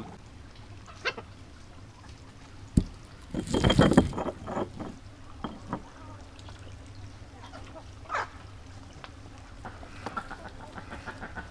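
Pestle knocking and grinding fresh basil and parsley into a paste in a mortar, with a sharp knock a little under three seconds in followed by a louder burst lasting under a second. Near the end, a lemon is rolled on a wooden cutting board.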